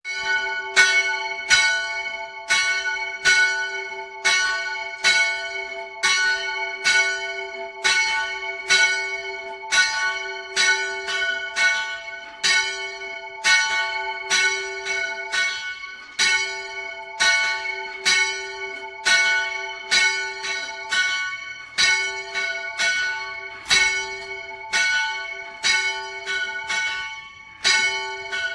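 Swinging church bells in a church tower's steel bell frame, heard close up in the bell chamber. The ringing starts suddenly with a strong stroke and carries on at about two strokes a second, each stroke ringing on into the next.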